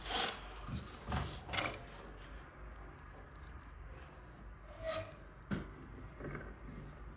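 Handling noise from a cordless drill, screws and a plastic wall bracket being picked up and positioned: a few short knocks and clicks with faint rubbing between them. The drill motor is not running.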